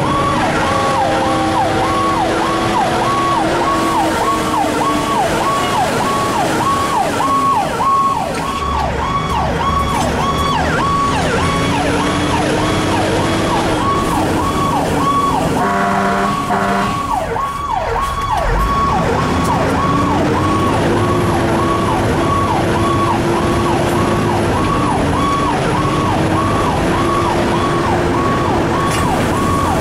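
Fire engine siren heard from inside the cab on an emergency run: a fast electronic yelp repeating about twice a second, over a lower wail that rises and falls slowly. A short horn blast sounds about sixteen seconds in.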